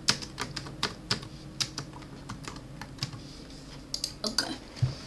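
Computer keyboard typing: an uneven run of key clicks as a short phrase is typed, over a low steady hum.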